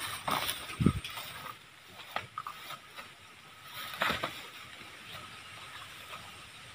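Rustling steps through tall grass with a single low thump about a second in, then a cluster of wooden knocks and scraping around four seconds in as a heavy log is laid down against other logs.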